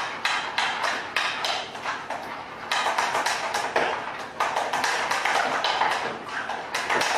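A utensil stirring a thick flour-butter-and-milk sauce in a saucepan, scraping and knocking against the pan in quick repeated strokes, about three to four a second.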